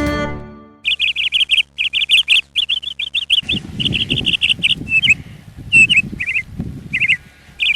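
Small birds chirping in quick bursts of rapid trilled notes, one phrase after another, with a low rustling noise underneath from about halfway through.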